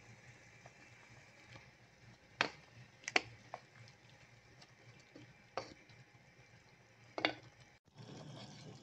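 Wooden spatula stirring chicken and okra stew in a pot, knocking sharply against the pot about five times over a faint steady hiss.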